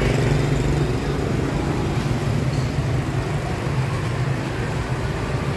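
Steady road traffic noise with a low engine hum running throughout.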